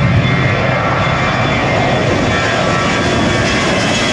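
Jet engines of a twin-engine airliner flying low overhead: a loud, steady rushing noise with high whining tones, one of them sliding slightly lower in pitch near the end.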